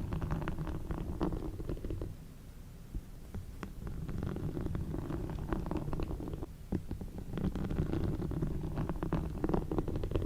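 Slow, deep breathing close to the microphone: three long breaths, each swelling for about three seconds with a rough, crackly low rush, with short pauses between them.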